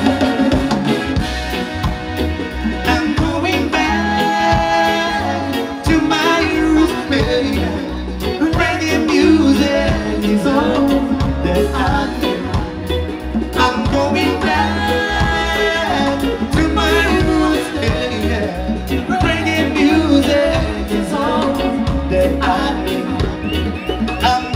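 Live band music: electric bass, guitar and drums with male singers.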